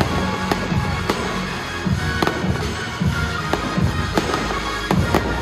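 Fireworks launching and bursting in a quick run of sharp bangs, about one every half second to a second, over loud music played through a sound system.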